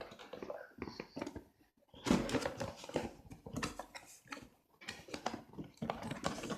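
Cardboard box and its packaging being opened and handled: irregular rustling, scraping and clicks, busiest about two seconds in.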